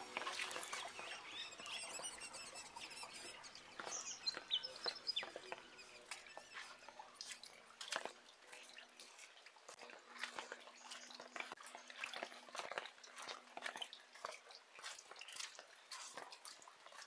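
Faint, irregular patter of raindrops dripping onto puddles and wet ground in light rain, with a few bird chirps about four seconds in.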